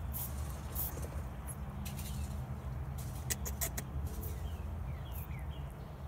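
Pet lop-eared rabbit sneezing: short, sharp little bursts at irregular intervals, with a quick run of three or four about halfway through, over a steady low rumble.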